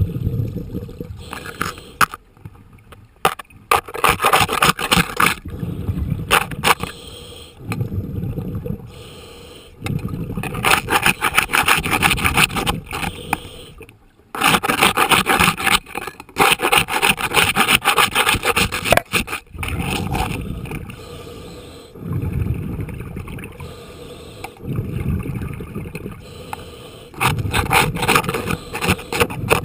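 Barnacle growth on a boat's keel being scraped off underwater: runs of gritty, crackling scraping strokes lasting a few seconds each, with short pauses between runs.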